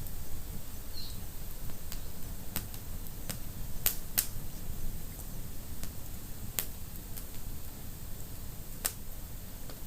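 A wood fire in a fireplace burning with a low steady rumble and irregular sharp crackles and pops. A pair of louder snaps comes about four seconds in, and more follow later.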